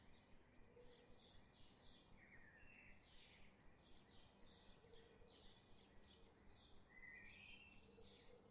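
Faint birdsong: several small birds chirping in a quick, steady stream of short high notes, with an occasional brief gliding call.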